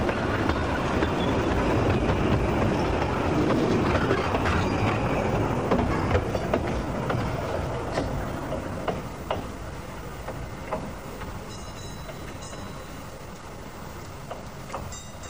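Passing 2 ft 3 in narrow-gauge railway coaches rolling close by, the wheels clicking over the rail joints. The sound fades away after about eight seconds as the train draws off.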